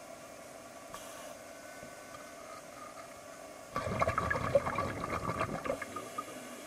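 Scuba diver's exhaled breath bubbling and gurgling underwater for about two seconds, starting a little under four seconds in, over a steady faint underwater background hum.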